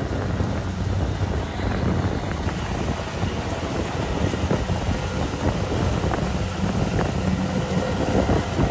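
Kubota DC-70 crawler rice combine harvester running as it cuts rice: a steady engine hum under a loud, dense mechanical rushing noise.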